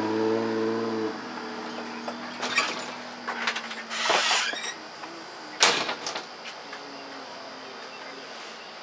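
A steady engine hum that cuts off abruptly about a second in, followed by a few short knocks and rustles.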